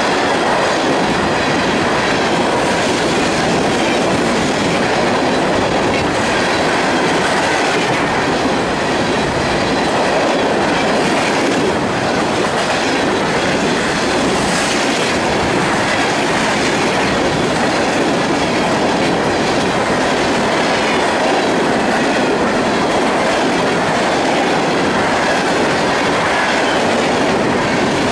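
Freight train's open-top hopper cars rolling past at close range: a steady, loud clatter and rumble of steel wheels on the rails.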